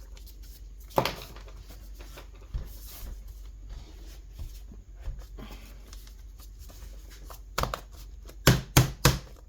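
Tool and gloved hands clicking and knocking against a laptop's keyboard and plastic chassis while pushing to slide the keyboard out, which sticks. A sharp knock about a second in, and a quick run of loud knocks near the end.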